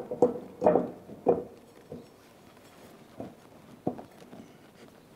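A flywheel being fitted onto an LS3 V8's crankshaft flange, giving sharp metallic knocks and clicks: four quick ones in the first second and a half, then two more, spaced out.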